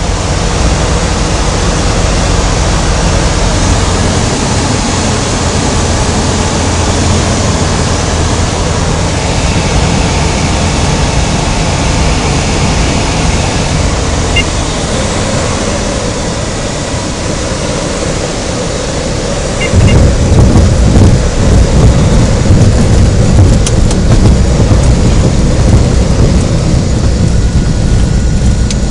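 Cabin noise of a Robin DR 400 light aircraft on a slip landing: a steady, loud rush of airflow and engine. About two-thirds of the way through, a heavier, louder low rumble sets in as the wheels touch down and roll on the grass.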